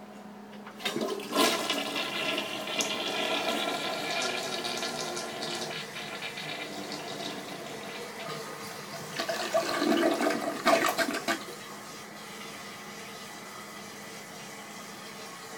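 Toilet flushing: a sudden rush of water about a second in, a second loud surge around ten seconds in as the bowl empties, then a steadier, quieter hiss as it refills.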